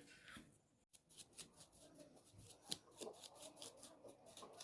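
Scissors snipping through hair: faint, quick irregular snips with a light rustle of hair.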